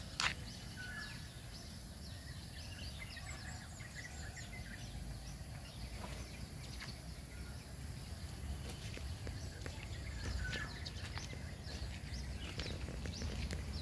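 Outdoor ambience: a steady low rumble with scattered short bird chirps throughout, and one sharp click just after the start.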